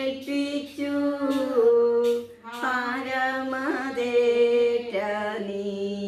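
A slow Malayalam hymn to Our Lady of Perpetual Help, sung unaccompanied by a female voice in long, held notes. The singing breaks off briefly about two seconds in, then resumes.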